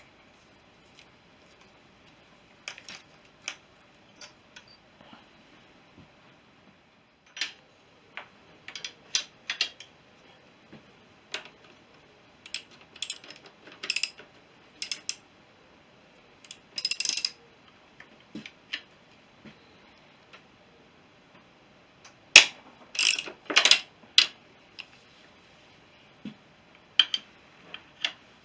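Hand tools working on a Honda CB350 engine as it is taken apart: scattered metallic clicks and clinks with a few short runs of rapid ratchet-like clicking, loudest in a cluster about three-quarters of the way through.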